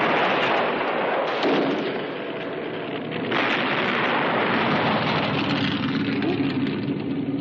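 Film sound effects: the roar of an explosion dying away over the first second or so, then a car engine running under loud rushing noise as the car slides across loose gravel.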